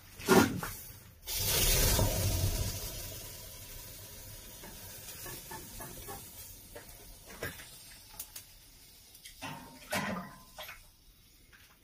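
Water tipped from a long-handled ladle onto red-hot stones in the stone chamber of a brick sauna stove. A sudden rushing hiss of steam starts about a second in and dies away over several seconds: the steam blast that blows ash off the stones and up the chimney. A few light clinks and knocks of the ladle and the iron chamber door follow.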